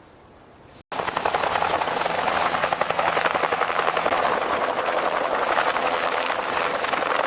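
Helicopter rotor beating steadily with fast, even chopping, starting abruptly about a second in after a brief stretch of quieter sound.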